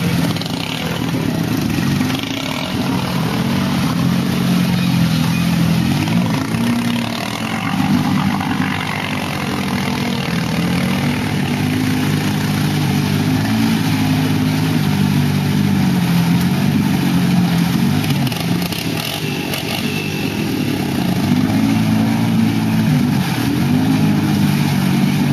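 ATV engine running under load as the quad churns through deep mud and water, its revs rising and falling again and again as the rider works the throttle.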